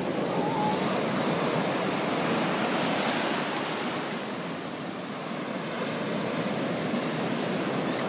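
Ocean surf: a big wave's foamy wash rushing up over the sand in the shallows. It is loudest in the first few seconds, eases about five seconds in, then builds again as more water comes in.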